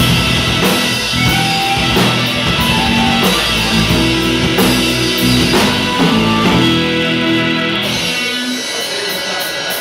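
Rock band playing an instrumental passage: electric guitar over bass and drum kit with cymbals. About eight seconds in, the bass and low drums drop out, leaving guitar and cymbal hits.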